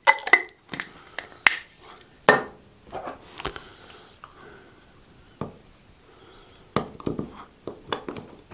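Irregular clicks, taps and clinks of a stainless-steel manual coffee grinder and a small glass jar being handled: coffee beans poured into the grinder's hopper and its metal lid put back on. One clink near the start rings briefly.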